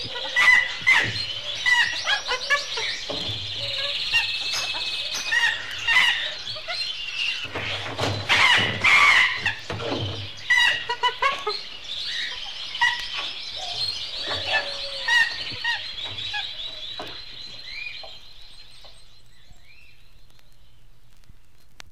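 Pet-shop ambience: caged small birds chirping and trilling, with louder harsh screeches around eight to ten seconds in. It fades out about three quarters of the way through.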